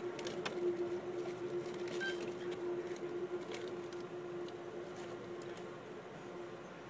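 Amtrak Empire Service passenger train heard from inside the moving coach: a steady hum over the rumble of the running train, with scattered light clicks and rattles.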